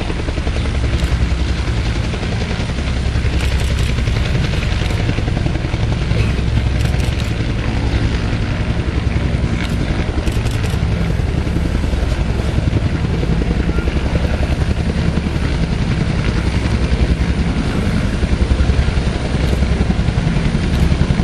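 Agusta-Bell AB212 military helicopter hovering low. The rapid beat of its two-blade main rotor sits over the steady noise of its twin turboshaft engines.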